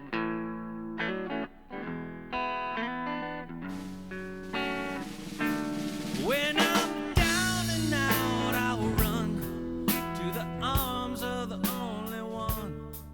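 Guitar-led music: plucked guitar notes, with bending notes and a drum kit coming in about seven seconds in.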